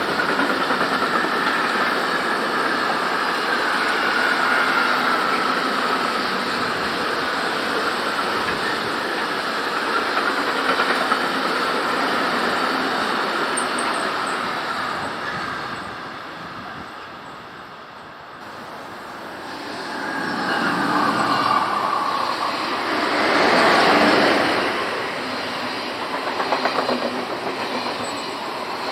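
A train running past on the track. Over the first half, a high tone sinks slowly in pitch above the running noise. The sound fades about two-thirds of the way through, then swells again to its loudest near the end.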